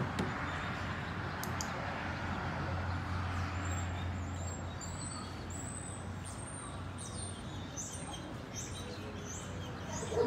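Small birds chirping outdoors, a quick series of short high chirps in the second half, over steady background noise with a low hum in the first half.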